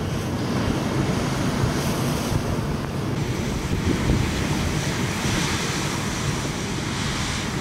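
Heavy hurricane swell breaking against a concrete seawall: a continuous, dense rush of crashing surf and spray, with wind buffeting the microphone.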